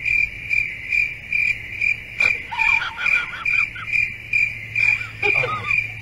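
A high-pitched chirp repeating evenly, a little over twice a second, over a low steady hum. Faint short whines slide in pitch in the middle and again near the end.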